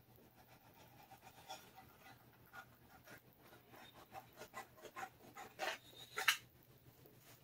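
Utility knife blade scratching through sealer-stiffened cloth as it is trimmed along a guitar body's edge, with the fabric rustling in the hand. Faint short scrapes that come closer together and louder in the second half, loudest about six seconds in.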